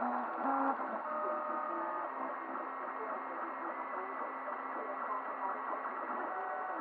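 3D printer's stepper motors whining as the print head moves, in short steady tones that jump to a new pitch every fraction of a second, over a steady hiss.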